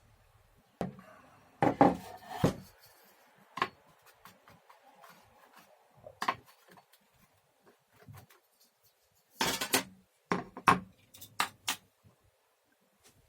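Metal router plane and its parts being handled: irregular sharp clinks and knocks, bunched about two seconds in and again around ten seconds in, with a few single taps between.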